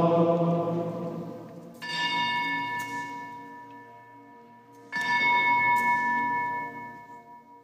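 Altar bell struck twice, about three seconds apart, each strike ringing on and slowly dying away. It is rung at the elevation of the chalice, just after the words of consecration.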